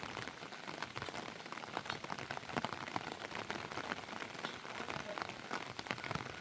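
Heavy rain pattering steadily, a dense run of many small drop ticks.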